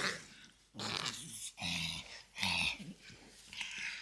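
French bulldog making a series of short raspy growling, grunting noises, about four in a row.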